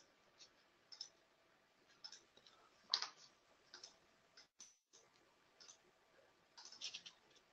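Near silence with faint, scattered computer mouse clicks, the loudest about three seconds in and a small cluster near the end.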